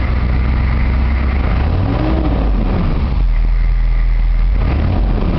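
Chevy 6.5 L V8 turbo diesel engine idling steadily and evenly. It runs smoothly with no miss, its broken valve spring now replaced.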